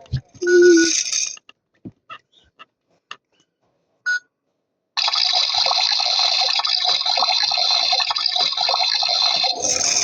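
Toy washing machine beeping twice with a few clicks, then starting a steady rushing run about five seconds in, which sounds like water filling or the tub running.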